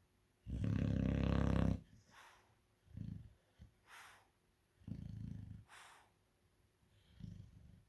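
Chow chow dog snoring in its sleep: one long, loud snore about half a second in, then three softer snores about every two seconds, two of them followed by a short hissing breath out.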